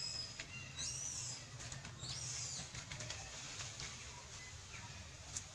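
A few short, high-pitched animal calls that glide up and then down, over a low steady rumble, with one sharp click near the end.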